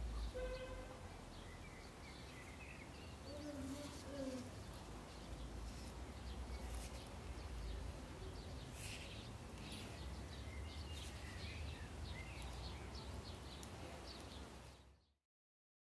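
Faint background ambience: a steady low rumble with a few birds chirping and scattered light clicks, cutting to silence near the end.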